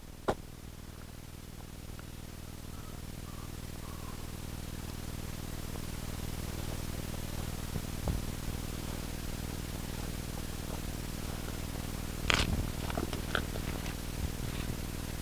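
Soft handling sounds of leather moccasin booties being pulled on over socks: faint rustles and a few light taps, the clearest near the end, over a steady low hum and hiss.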